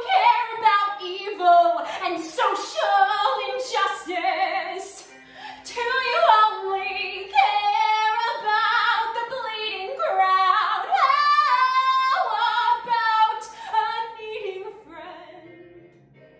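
A woman singing a musical-theatre ballad solo, in long, full, belted phrases; her voice falls away near the end.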